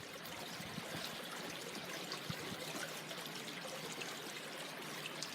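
Running water from a stream: a steady, even trickling rush.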